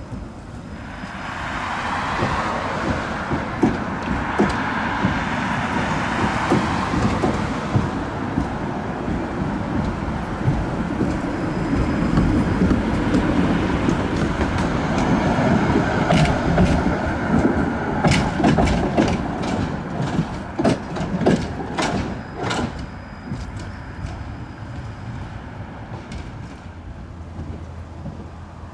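A tram passing close by and pulling away: a swelling rush and low wheel rumble, then a run of about a dozen sharp clacks from its wheels on the rails, fading as it recedes.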